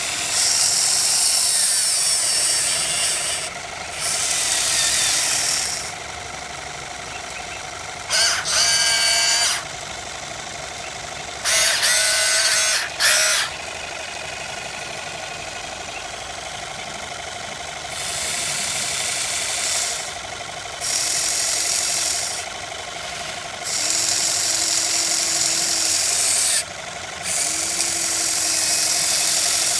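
Huina 580 RC excavator's electric motors and gearboxes whining in bursts of a few seconds as the arm digs the ripper into the soil and the upper body slews, about seven bursts in all, over a steady lower running drone from the model between them.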